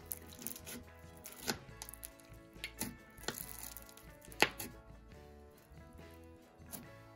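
Slushie-bead slime (white glue slime with slushie beads and clay) squished and kneaded by fingers: scattered crunchy clicks and pops, the loudest about four and a half seconds in, over soft background music.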